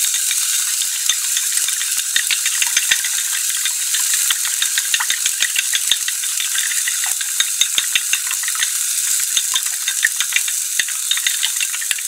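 Wooden chopsticks beating a raw egg in a small porcelain bowl: rapid, irregular clicks against the side of the bowl. Under them, the steady sizzle of a fish sausage frying in a little oil.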